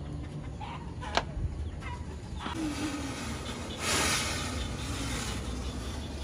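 Homemade fogging machine hissing as it blows out fog, loudest for about a second around four seconds in. A sharp click comes about a second in.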